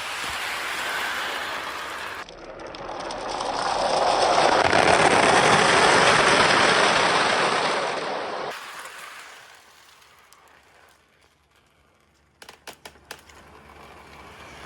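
Many marbles rolling and rattling around a circular rain-gutter track in a steady rumble that swells, then dies away as they come to rest. A few sharp clicks of marbles knocking together come near the end.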